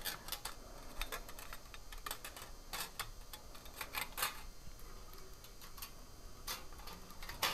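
Faint, irregular light metallic clicks and rattles as a steel head gasket is slid down over the cylinder studs of a motorcycle engine block and the cam timing chain is handled through it.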